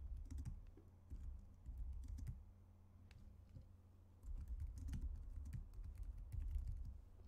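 Typing on a computer keyboard: runs of quick keystrokes, with a short pause about halfway through.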